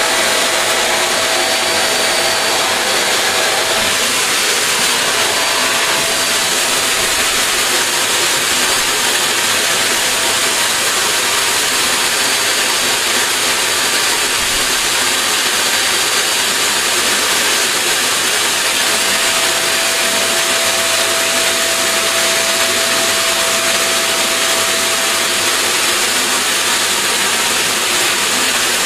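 Vacuum cleaner running steadily and loudly, an even rushing noise with a faint whine that comes and goes.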